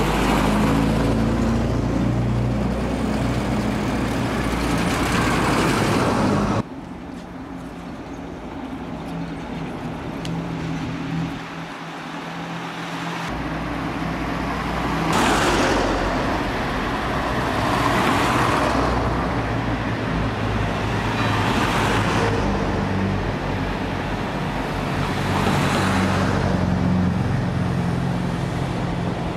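Classic cars driving past one after another on a cobbled street, their engines and tyre noise swelling and fading with each car. The sound changes abruptly about six and a half seconds in.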